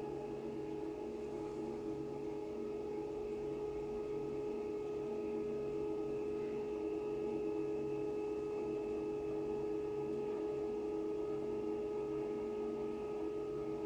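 Cruse CS ST RD 185 planetary scanner running during a scan: its stepper-driven synchronized table and suction table give a steady machine hum with several held tones, slightly louder in the second half.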